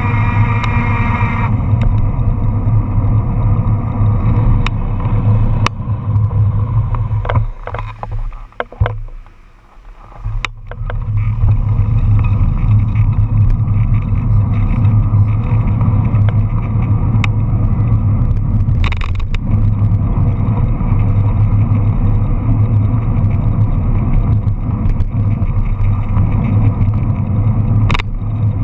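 Steady rush of wind and road noise on a bicycle-mounted camera's microphone while riding along a city street, with traffic mixed in. It fades for a few seconds about eight seconds in, then comes back just as strongly.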